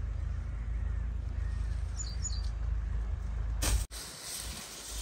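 Open-field ambience with a low steady rumble, and two short high bird chirps about two seconds in; a brief rustling burst near the end.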